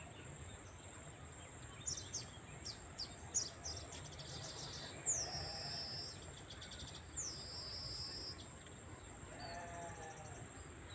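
A songbird chirping in short high notes, with two longer calls that slide down into a wavering trill about five and seven seconds in. Insects keep up a steady high drone underneath.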